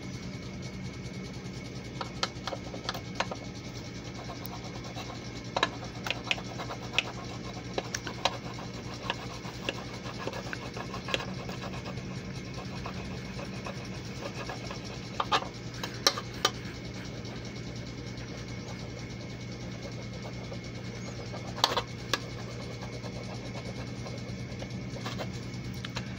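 Metal burnisher rubbing hard over press-and-peel transfer paper on a sterling silver piece, with scattered sharp clicks and scrapes as the tool slips off the silver's edge. A steady low hum runs underneath.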